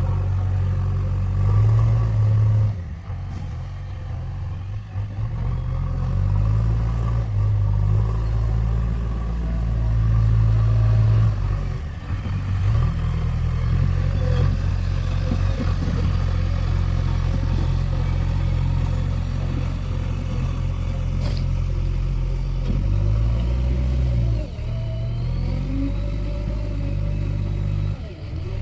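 JCB excavator's diesel engine running, its low hum shifting up and down in pitch as the load changes while the machine works. A single sharp knock comes about three-quarters of the way through.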